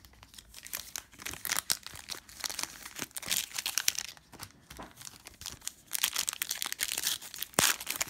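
A foil trading-card pack wrapper crinkling and tearing as it is opened: an irregular run of sharp crackles, busier near the end.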